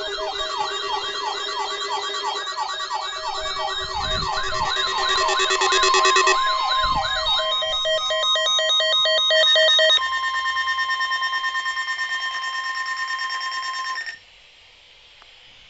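Several electronic sirens sounding together: rapid rising-and-falling wails and yelps over a steady tone near 1 kHz. About 8 s in the sweeps give way to a fast switching between two pitches, and the whole mix cuts off abruptly about 14 s in.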